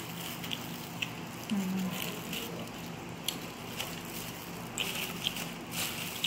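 Light crackles, clicks and rustles of plastic-gloved hands tearing crispy fried chicken apart on a paper-lined plate, over a steady low hum. A short low voice-like hum sounds about a second and a half in.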